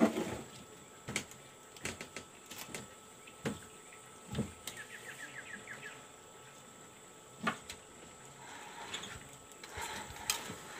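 Quiet river-boat ambience: irregular sharp ticks and small knocks, a short rapid series of chirps about five seconds in, and near the end the clicks and rustle of a spinning rod being lifted and its reel handled.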